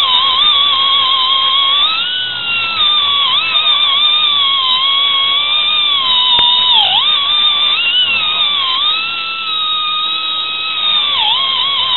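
Angle grinder running against rusty steel, a steady whine that wavers and briefly drops in pitch as the tool is pressed into the work, most sharply about seven seconds in and again near the end.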